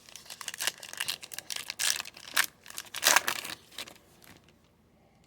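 Crinkling and rustling of a foil trading-card pack wrapper and cards being handled, with quick sharp crackles for about four seconds before it falls quiet.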